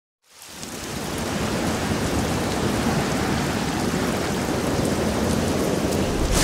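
Steady rushing noise with faint scattered crackles, fading in over the first second and then holding level: an intro sound effect.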